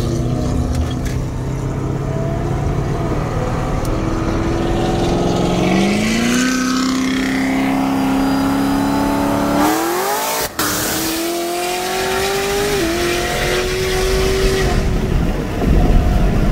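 Big-cam C7 Corvette Z06 V8 with a Magnuson 2650 supercharger accelerating hard alongside. Its engine note climbs about six seconds in, jumps up sharply near ten seconds, and keeps rising at a higher pitch.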